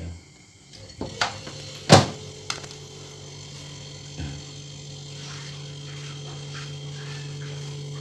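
A few sharp clicks, the loudest about two seconds in, as the Toshiba Glacio two-door refrigerator is switched on. Its compressor starts and settles into a steady low hum that grows slightly louder.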